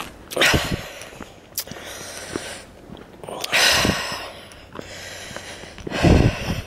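A walker's breathing close to the microphone: three loud breaths, about half a second in, near the middle and near the end, with faint footstep clicks between them.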